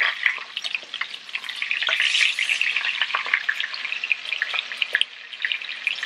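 Tri-tip roast searing in hot oil and butter in a cast iron skillet: a steady crackling sizzle full of small pops after the meat is flipped with tongs, briefly louder about two seconds in.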